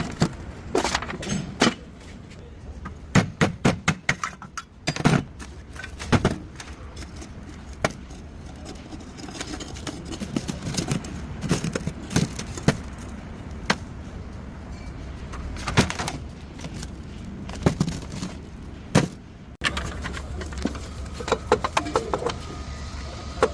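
Vehicle engine running with a low steady hum, under sharp, irregular metallic clicks and rattles from the exhaust. The rattle is the sign of a broken catalytic converter.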